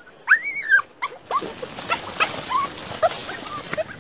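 Dogs whining and yipping while digging at a burrow: one long arching whine early on, then many short high yips over the scratching and scraping of paws in loose dirt.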